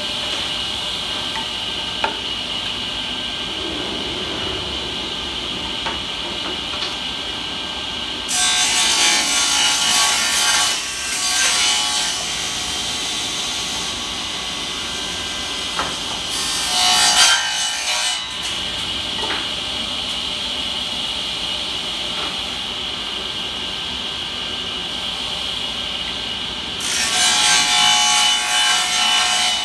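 Table saw running with a steady high whine, ripping the broken tongue and groove off old pine boards: three cuts, each louder and rougher while the blade is in the wood, about a third of the way in, just past halfway, and near the end.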